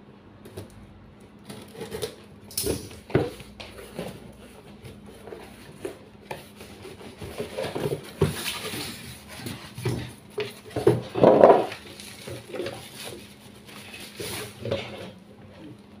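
Cardboard box and packaging being handled during an unboxing: irregular knocks and scrapes of cardboard with rustling of paper and plastic wrapping, loudest about eleven seconds in.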